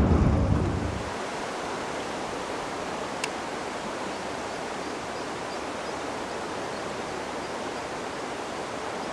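Steady, even rushing of a river current. A low wind rumble fades out in the first second, and there is one faint click about three seconds in.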